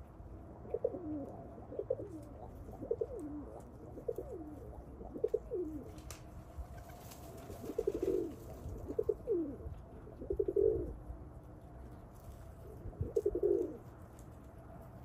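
Pigeons cooing: a run of short, low coos that fall in pitch, about one a second, with a few longer, louder coos in the middle and near the end.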